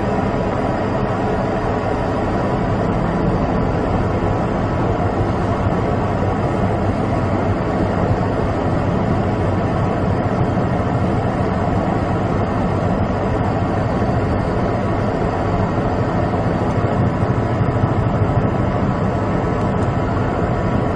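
Steady, unbroken engine drone with a dense rumble and faint steady tones, loud throughout.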